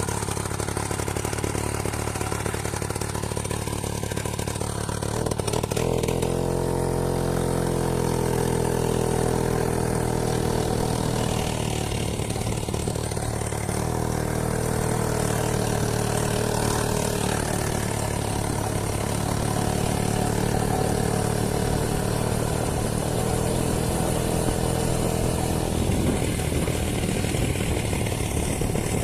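Two-stroke chainsaw engine powering a homemade moped, running steadily. About six seconds in it speeds up and holds a higher, even pitch, wavering a little now and then.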